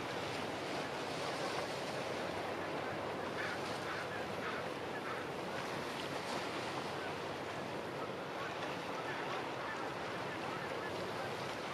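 Steady wash of small waves on harbour water, with some wind, as an even, unbroken rush.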